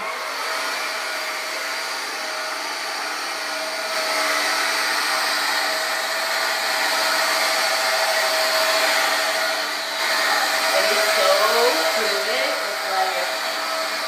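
Hoover Air cordless upright vacuum running over a hardwood floor with its soft-bristle brush roll switched on: a steady whine over a hiss, a little louder from about four seconds in.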